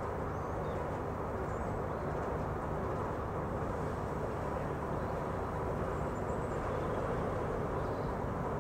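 Steady, low engine rumble heard from a distance, with a few faint bird chirps high above it.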